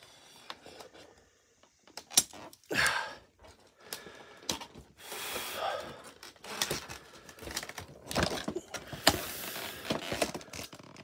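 Plastic toy packaging being cut and pried open with a small cutter: irregular sharp clicks and taps of plastic, with several longer stretches of scraping and crackling as the plastic is sliced and pulled back.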